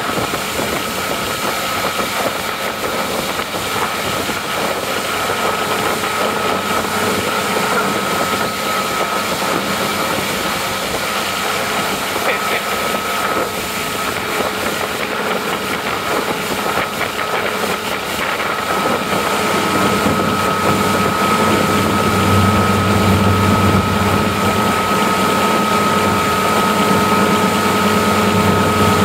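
Motorboat engine running steadily under way while towing, mixed with the rush of the churning wake. A deeper engine hum grows stronger about two-thirds of the way through.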